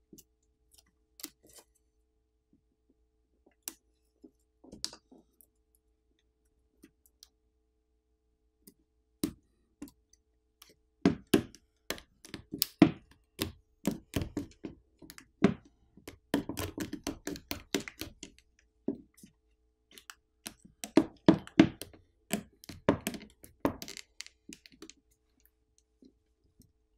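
Small repair tools clicking and scraping against the opened phone as its battery is tugged at: sparse clicks at first, then two dense runs of clicking and scraping in the second half. The battery is held down by strong adhesive and does not come free.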